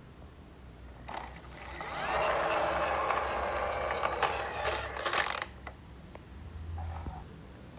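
Toy police patrol wagon truck rolling across a tile floor after a push, its plastic wheels and geared friction motor whirring and rattling. The sound builds quickly, fades gradually over about three seconds, then stops abruptly.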